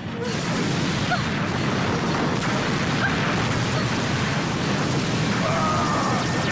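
Dense cartoon action soundtrack: a steady, loud rush of noisy sound effects mixed with music, with a few faint short gliding tones and no single standout hit.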